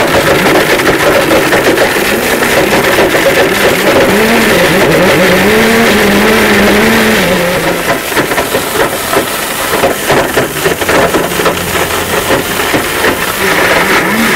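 Blendtec blender running its smoothie cycle on three rubber hockey pucks. A loud motor runs with constant clattering and grinding as the pucks are smashed and shredded. The motor's pitch rises about four seconds in, holds, then falls back a few seconds later.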